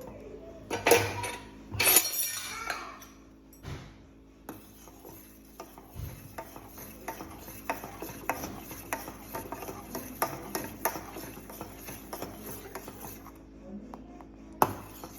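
Spoon stirring milk in a cooking pot, clinking against its sides. A couple of louder knocks near the start, then a regular tapping about twice a second.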